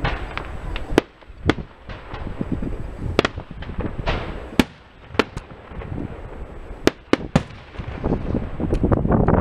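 Aerial firework shells bursting in a display: a string of sharp bangs, about a dozen, with low rumbling between them and dense crackling near the end.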